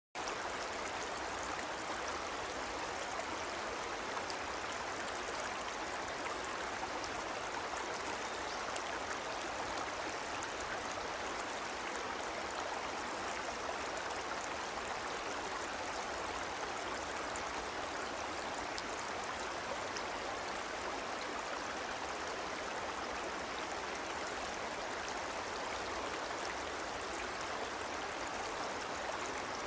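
Steady rushing noise, like running water, with faint scattered ticks.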